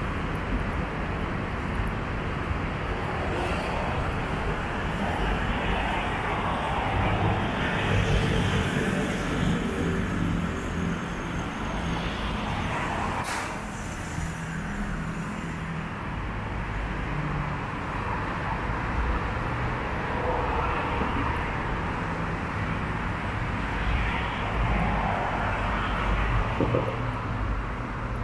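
Light road traffic on a wide city avenue: a steady rush of passing cars, with slow swells as vehicles go by. A single sharp click about halfway through.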